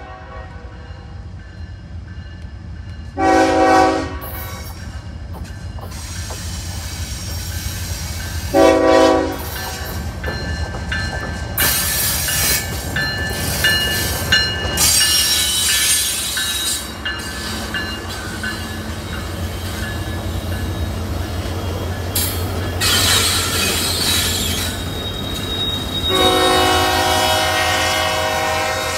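Diesel freight locomotive's air horn sounding at a crossing: two short blasts a few seconds apart, then a long blast near the end. Between the blasts the train rolls past with a low engine rumble and a high metallic squealing from the passing cars.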